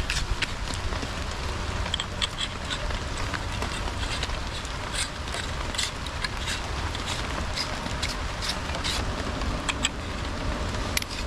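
Steady rainfall, with many irregular sharp drop ticks over an even hiss and a low rumble underneath.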